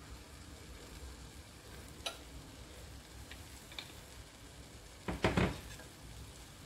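Pancit canton noodles with corned beef and vegetables sizzling softly in a wok as sauce is drizzled in. There are a few faint clicks, and a short louder burst of noise about five seconds in.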